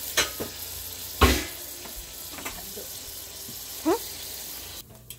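Ribeye steak sizzling and frying in a hot pan, with a few sharp knocks, the loudest a little over a second in. The sizzle drops away near the end.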